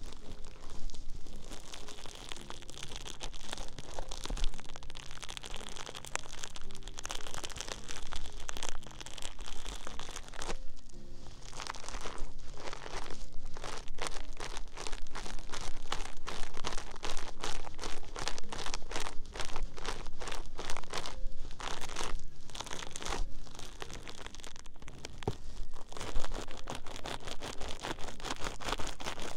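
Close-up ASMR crinkling and crunching: dense, irregular crackles of some object being handled right at the microphone.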